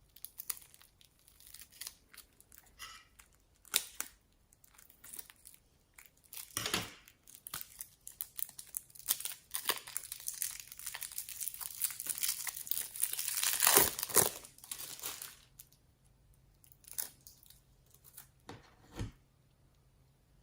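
Crinkling, crackling handling noise with scattered sharp clicks, building to a dense crackle about two-thirds of the way through, then thinning out to a few single clicks.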